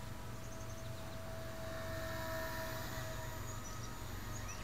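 Blade 130X micro RC helicopter's electric motors and rotors running with a steady high whine, a little louder about two seconds in. Its tail rotor is freshly balanced and runs on new flanged tailcase bearings, and the tail is described as quite smooth.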